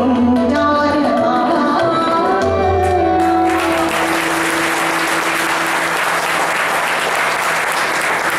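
Closing phrase of a Marathi natyageet sung by a woman's voice with tabla and organ, ending on a held note. About three and a half seconds in, audience applause breaks out and carries on.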